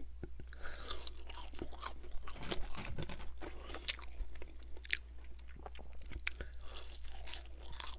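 A man chewing McDonald's French fries close to the microphone: quick, irregular crunches and mouth clicks.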